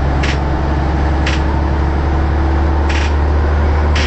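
Leyland Titan double-decker bus running, a steady low engine drone, with four short hisses over it.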